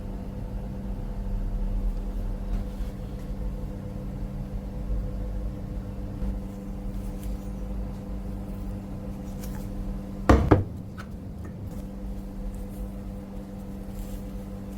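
A workshop machine's electric motor hums steadily, with one sharp metallic clank about ten seconds in.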